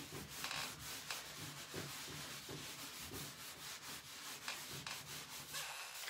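Cloth rubbing over a chalk-painted pine cabinet panel in repeated strokes, wiping back a wet blue colour wash.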